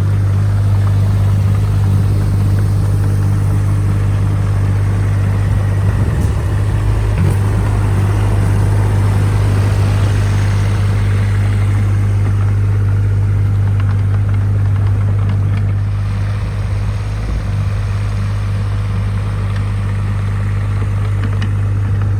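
Diesel engine of a tracked machine running steadily with a constant low hum as the machine drives over freshly laid gravel sub-base to compact it. It gets a little quieter for the last few seconds.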